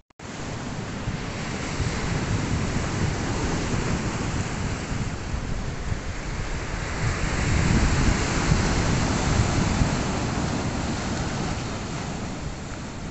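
Sea waves surging and breaking over a rocky shoreline, with wind buffeting the microphone. The surf swells to its loudest about eight seconds in, then eases off.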